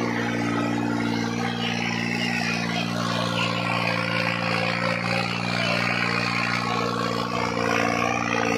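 New Holland 3630 tractor's diesel engine running steadily, with a constant, unchanging note.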